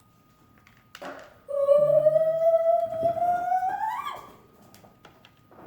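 A child singing one long, high note that slowly rises in pitch and swoops up at the end, after a knock about a second in.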